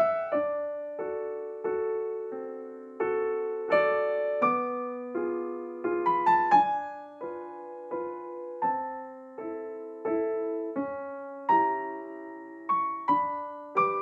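Background piano music: a slow, gentle run of struck notes and chords, each fading after it is played.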